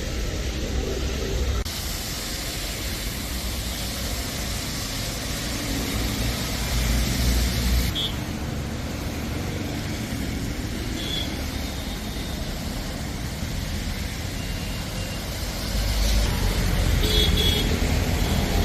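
Road traffic: vehicles passing with a steady rushing noise and low rumble, and a few brief car-horn toots, about 8, 11 and 17 seconds in. The sound changes abruptly twice, as at edits.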